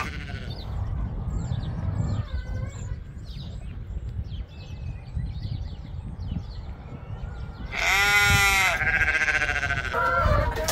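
Sheep bleating: one loud bleat about eight seconds in, with further calls straight after. A low rumble of wind on the microphone runs under it.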